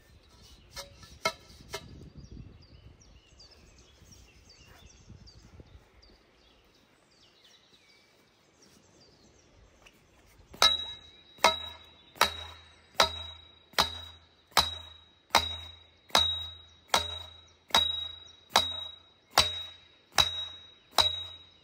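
Sledgehammer striking the top of a steel scaffold pole, driving it into the riverbed. There are a few blows at the start, then after about ten seconds a steady run of about fourteen ringing clangs, just under one a second.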